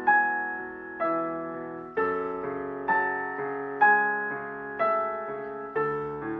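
Solo piano playing a slow, calm piece: a note or chord struck about once a second, each left to ring and fade before the next.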